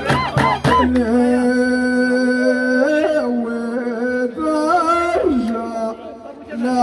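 Ahwach chant: men's voices holding long drawn-out notes that step and slide between pitches. A few last frame-drum beats sound in the first second.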